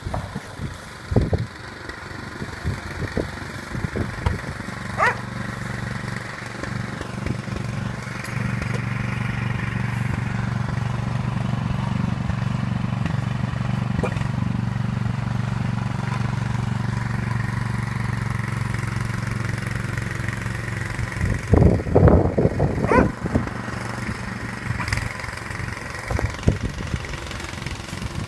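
An engine running steadily, with a cluster of loud sudden sounds a little after twenty seconds in.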